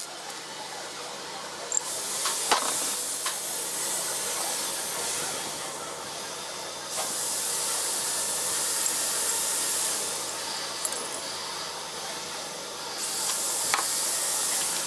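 Three stretches of loud, steady high-pitched hissing, each a few seconds long. A few light clicks come from small brass engine parts being fitted together by hand.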